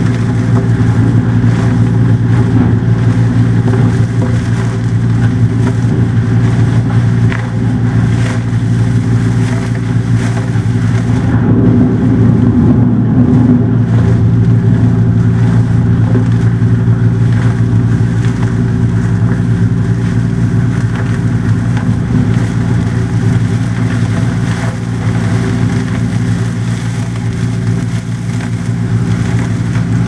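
Industrial vacuum truck running steadily: the even, low drone of its engine and vacuum pump pulling waste water and sludge out of the tank through the hose.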